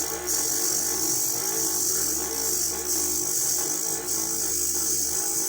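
Small homemade lathe driven by a salvaged electric motor, running steadily with a constant whine and a high hiss as a fishing float is turned on it.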